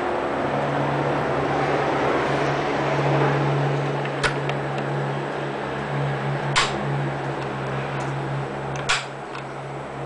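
1970s Sanyo desk fan running with a steady motor hum and a rush of air. Three sharp clicks, a little over two seconds apart, as its push-button speed switches are pressed; after the last one the fan runs quieter.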